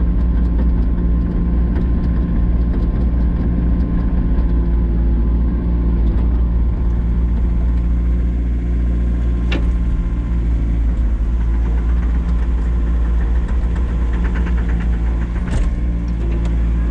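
Excavator engine idling steadily, with two short clicks, one about ten seconds in and one near the end.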